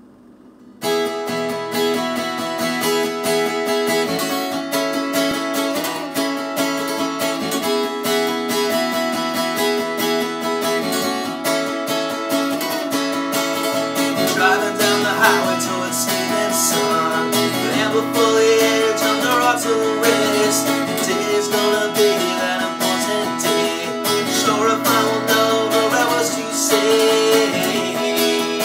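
Acoustic guitar played in a steady rhythm, starting about a second in; a man's singing voice joins around halfway.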